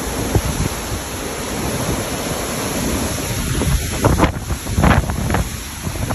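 Strong tornado winds rushing through trees, with gusts buffeting the microphone. Several harder gusts hit about three and a half to five and a half seconds in.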